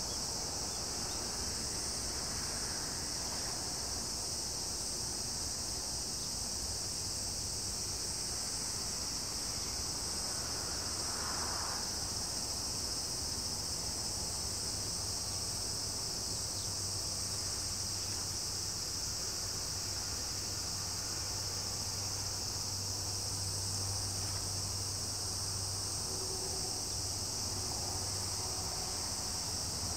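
Steady chorus of insects, a continuous high-pitched shrill buzz that does not let up, with a faint low hum underneath.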